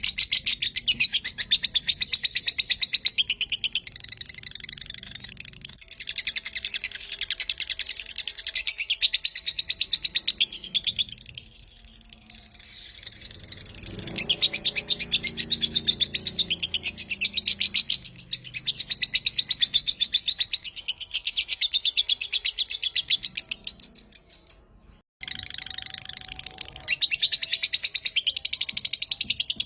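Lovebird giving its rapid 'kekek' chatter: long unbroken runs of fast, high-pitched chirps. The chatter lulls briefly near the middle and cuts out for a moment near the end before starting again.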